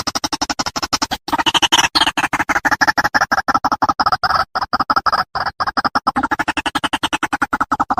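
White-breasted waterhen (ruak-ruak) calling as a fast, harsh chattering run of pulses, about eight a second, broken by a few short pauses. This is the bird's call as used to lure waterhens.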